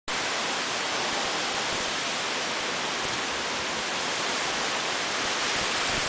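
Heavy typhoon rain pouring down in a steady hiss.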